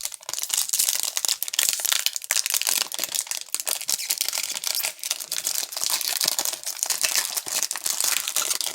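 Plastic wrapper of a trading card pack crinkling and tearing as it is opened by hand, with many small crackles throughout.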